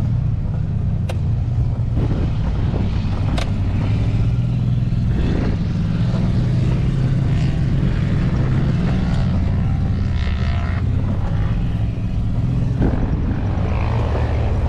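Vehicle engine running steadily at low pitch while driving an off-road course, with a few sharp knocks about a second and three seconds in.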